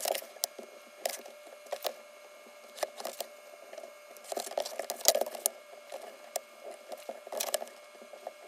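Pencil marking a mat board, with rulers being set down and shifted on it: irregular short taps, clicks and scratches, the loudest about five seconds in.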